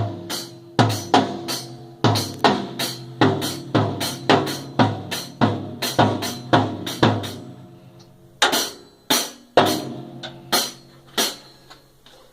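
A small child hitting a drum kit, single strikes at a fairly steady two to three a second, each drum ringing on after the hit. After a pause of about a second, a few louder hits come more widely spaced.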